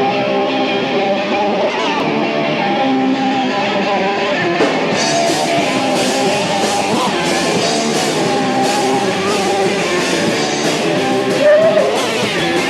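Live punk rock band playing, with loud electric guitar; the band's sound gets fuller and brighter about five seconds in.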